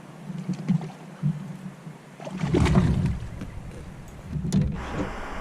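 Knocks and handling sounds on a kayak, with wind buffeting the microphone from about halfway through.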